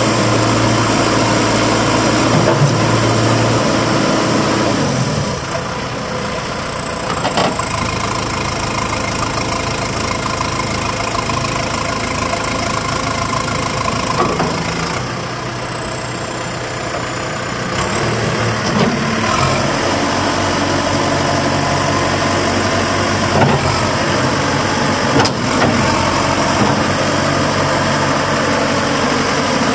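JCB 214 backhoe loader's diesel engine running, its speed dropping about five seconds in and picking up again about two-thirds of the way through. A few short knocks are heard over it.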